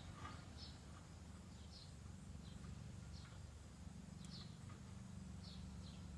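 Faint bird chirping: short, high, falling chirps repeated irregularly about once or twice a second, over a low steady hum.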